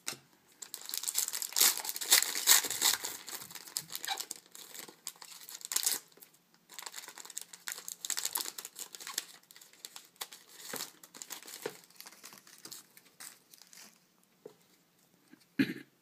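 Foil wrapper of a trading-card pack crinkling and tearing as it is opened, densest in the first few seconds, followed by sparser, lighter rustling of the wrapper and cards being handled.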